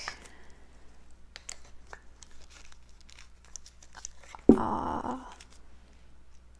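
Handling noise from unpacking a wooden yarn swift: small clicks, taps and packaging rustles, with one louder scraping clatter about four and a half seconds in.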